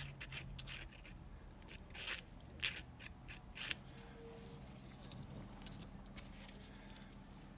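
Faint, scattered rustles and small clicks of a strip of cloth-backed sandpaper being handled while CA glue is spread on its edge.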